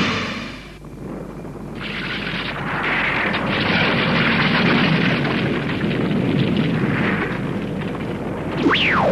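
Cartoon sound effect of a sustained, noisy rumbling roar of the ground shaking. Near the end come a few quickly falling synthesized whistles.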